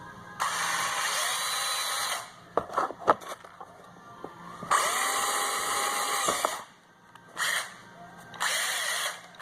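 Cordless drill with a side-cutting drill bit run in bursts into a piece of bumper plastic. Each burst has a motor whine that spins up, holds and winds down: about two seconds, then two seconds, a brief blip, and about a second near the end. A few clicks come between the first two runs.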